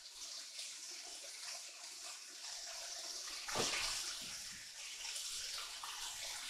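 Tri-tip roast searing in vegetable oil in a nonstick frying pan, a steady sizzle as it is browned to form a crust, with a single pop about three and a half seconds in.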